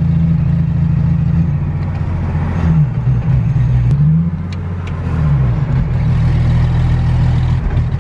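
Fox-body Ford Mustang engine heard from inside the car on a test drive. It runs at a steady pitch; the revs fall sharply and climb again about a third of the way in, then fall and recover once more past the middle.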